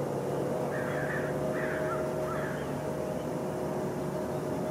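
A steady mechanical hum with a few short bird calls between about one and two and a half seconds in.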